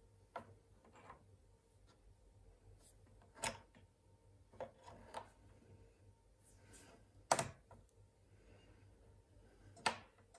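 A handful of short, sharp clicks a second or two apart, the loudest about three and a half, seven and ten seconds in, from the front-panel rotary meter range switch of an HP 6299A bench power supply being turned through its detents. A faint steady low hum sits underneath.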